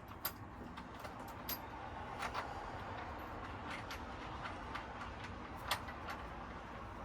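Scattered light clicks and taps, a handful spread irregularly over several seconds, from sofa parts being handled during assembly, over a low steady room hum.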